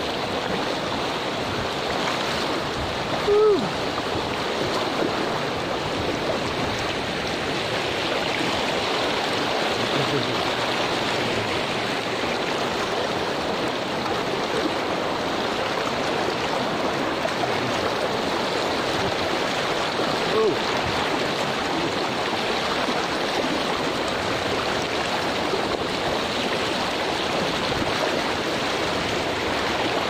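Shallow river rapids rushing steadily over a rocky bed. Two short, louder sounds break through, one a few seconds in and one about two-thirds of the way through.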